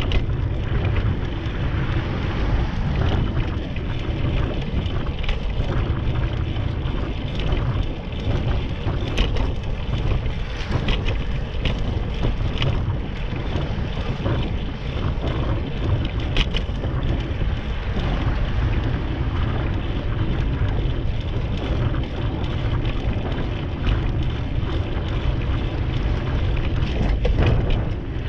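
Steady wind buffeting the microphone of a camera riding on a moving bicycle, with road rumble and occasional light clicks and rattles.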